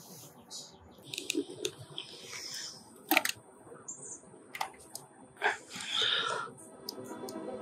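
Scattered short plastic clicks as the buttons of a Melnor electronic hose timer are pressed to set the watering time, with a brief rustle of handling near the end.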